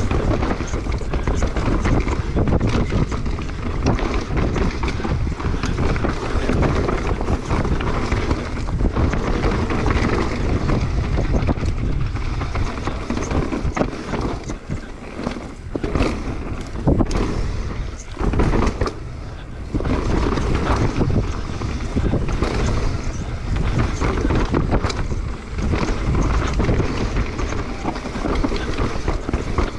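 Mountain bike running fast down a rough dirt trail: wind buffeting the microphone over the rolling tyre noise, with frequent sharp knocks and rattles from the bike over roots and rocks. The noise drops briefly a couple of times around the middle.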